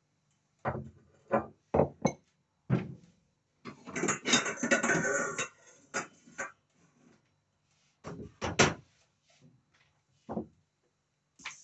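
Knocks and clinks of kitchen dishes and utensils off-picture while a bread patty is coated for frying, with a denser scraping clatter about four seconds in. Right at the end, hot oil starts to sizzle as the patty goes in.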